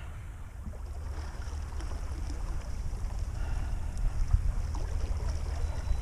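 Steady low wind rumble on the microphone as the boat moves slowly on the water, with a light knock about four seconds in.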